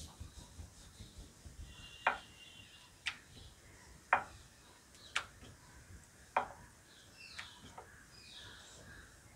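Wooden rolling pin rolling a paratha out on a wooden chakla board, with a sharp wooden knock about once a second as the pin is worked back and forth.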